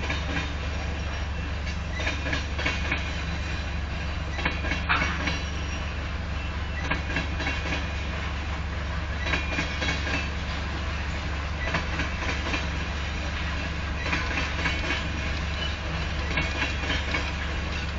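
Covered hopper cars of a freight grain train rolling past slowly: a steady low rumble of steel wheels on rail, with irregular wheel clicks over the rail joints.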